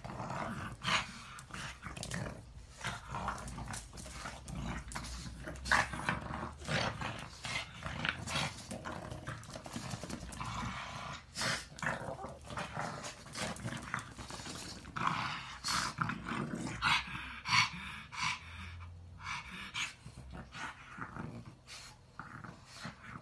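Two pugs play-fighting, growling in short, irregular bursts as they wrestle and tug at a toy.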